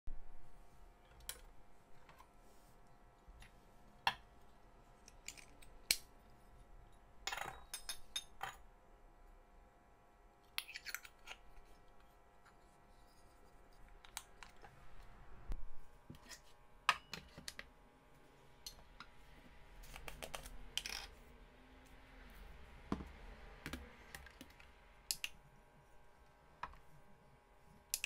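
Irregular sharp metallic clicks and clinks of stainless-steel espresso filter baskets being handled and swapped in a portafilter, with a few louder knocks as the parts are set down.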